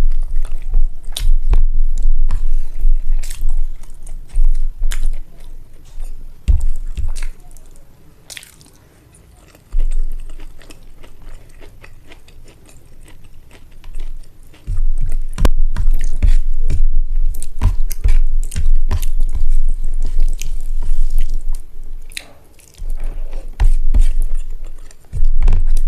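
Close-miked mukbang chewing of rice and egg curry, in rapid bursts of wet mouth sounds, with a quieter pause of a few seconds in the middle.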